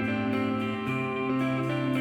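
Instrumental post-rock: interwoven electric guitar lines over a sustained bass note, which steps up to a higher note a little under a second in.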